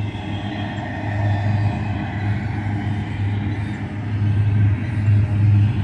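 Double-stack intermodal container train rolling past at speed: a steady low rumble of its cars' wheels on the rails that swells and eases every second or so, with a rushing clatter above it.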